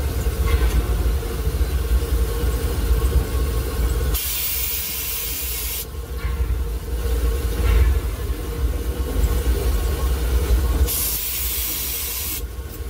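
Steam locomotive running, heard from inside its cab: a steady low rumble, broken twice by a loud hiss of steam lasting about a second and a half, about four seconds in and again near the end.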